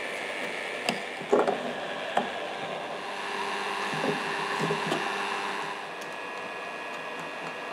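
Heat gun blowing steadily while a knife blade and chisel are worked into an old glue joint on a wooden desk foot to pry a misaligned repair loose. Sharp wooden clicks and cracks come about a second in, near two seconds, and again a few times around four to five seconds.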